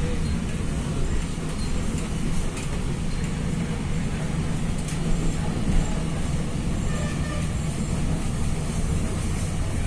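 Steady running noise of a moving passenger train heard from inside the carriage: a low rumble of the wheels on the rails, with a few faint clicks.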